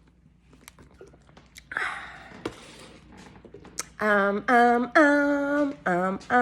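Faint clicks and a brief rustle, then from about four seconds in a string of loud, wordless vocal notes, each held at a steady pitch, in several short segments.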